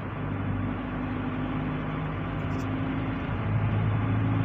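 Car driving, heard from inside the cabin: a steady road and engine drone with a low hum that grows a little louder near the end.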